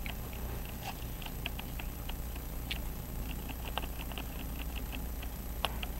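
Light, irregular clicks and taps of steel tweezers against a pocket watch movement and its metal holder as the pallet fork is set in place, over a steady low hum.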